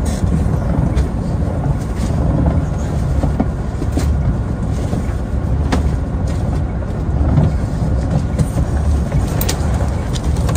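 Heavy rain beating on a truck cab, heard from inside, over the low, steady rumble of the truck's diesel engine idling.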